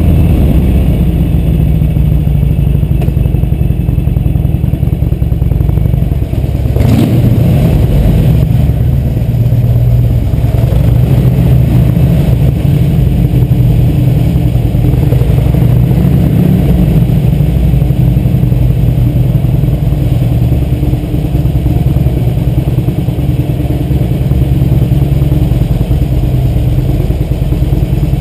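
2004 Harley-Davidson Sportster 883's air-cooled V-twin engine running steadily at low speed, a deep rumble. A brief sharp noise cuts across it about seven seconds in.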